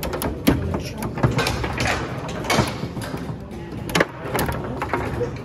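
Foosball table in play: the ball clacking off the rod-mounted players and the table walls, and the rods rattling as they are slid and spun, with several sharp knocks.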